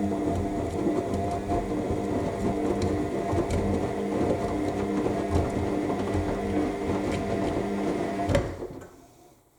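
AEG 7000 Series front-loading washing machine in its main wash: the drum motor hums steadily while the wet laundry tumbles with irregular soft thumps. A little past eight seconds in the motor stops with a last knock and the sound dies away as the drum comes to rest, the pause between drum turns.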